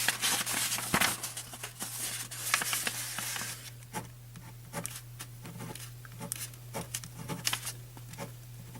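Small ballpoint pen scratching on paper in short strokes, dense and loud for the first few seconds, then lighter scattered scratches and ticks.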